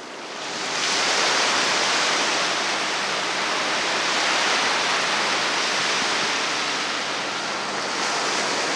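A steady rushing noise that fades in over the first second and then holds even.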